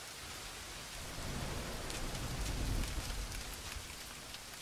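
Steady rain, an even hiss with scattered drop ticks, with a low rumble that swells about a second in and fades away after about three seconds.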